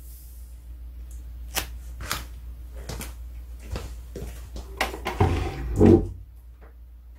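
A Pomeranian moving about on a putting mat and wooden floor: scattered light clicks and taps, with a louder scuffling clatter and low thuds about five to six seconds in as it heads off.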